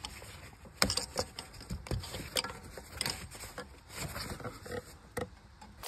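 Hand work in a diesel engine bay: a tool and rag-wrapped hand clicking and knocking against the engine's hoses and fittings, in irregular single knocks with scuffing and rustling between them.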